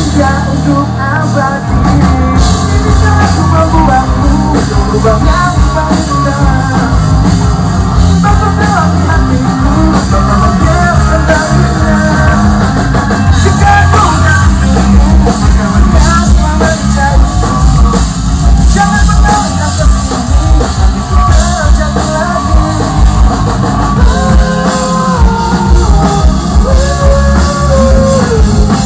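A live rock band at a sound check: a male singer sings an Indonesian song over electric guitars and a full band backing.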